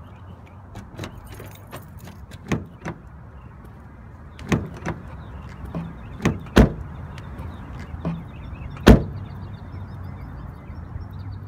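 Car door being opened and a person stepping out onto asphalt: a run of clicks and knocks, then a sharp thump about nine seconds in as the door is shut. A steady low hum runs underneath.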